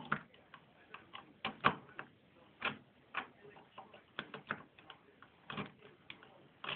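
Steel lock pick and tension wrench working the tumblers of a Ford Granada front-door lock barrel: irregular light metallic clicks and ticks, with one sharper click a little under two seconds in.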